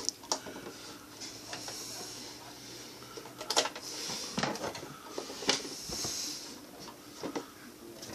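Handling noises from the humidifier's plastic parts: scattered clicks and knocks with a few short rustles.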